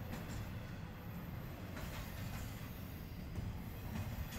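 Norfolk Southern intermodal freight train rolling past: a steady low rumble of wheels on rail, with a few faint clicks.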